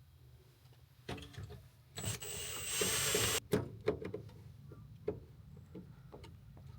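Clicks and knocks of hand work on a screen door latch. A loud, hissing mechanical whir runs from about two seconds in to about three and a half seconds in.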